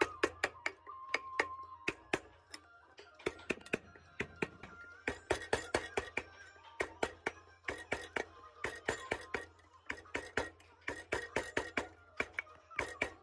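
Hand-pushed wood chisel paring into a clamped block of wood: an irregular run of sharp cracks and snaps, several a second, as chips split away.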